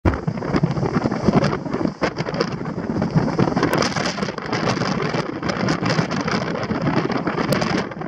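Strong mountain-top wind buffeting the microphone in loud, uneven gusts, with a brief lull about two seconds in. The wind is strong enough that it is hard to stand up in.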